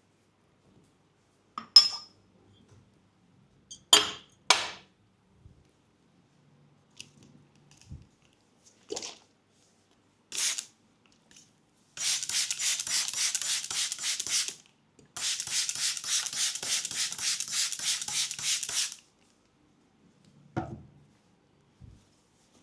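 Hands rubbing briskly in two runs of a few seconds each, pulsing evenly a few times a second, typical of massage strokes or palms working against each other. Before them come a few scattered light clicks and taps, and there is one dull thump near the end.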